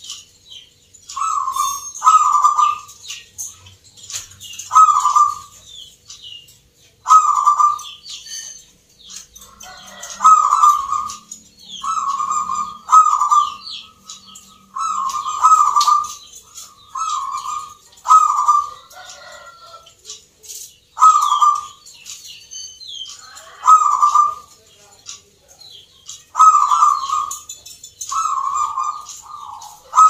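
Zebra dove (perkutut) cooing: short, rolling coo phrases repeated every second or two, with a couple of brief pauses.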